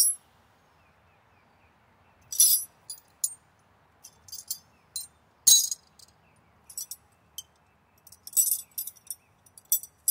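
Metal wrenches clinking and jangling in a tool bag as it is rummaged through for the right size. The sounds come in short scattered bursts, with the sharpest clack about five and a half seconds in.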